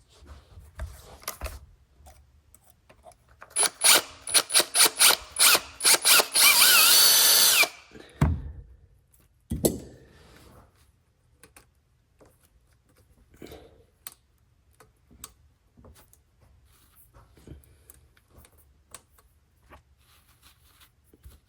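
Electric power drill pulsed in several short trigger bursts, then run steadily for about a second and a half with its motor pitch wavering, drilling out a part that would not fit. Light handling clicks and taps follow.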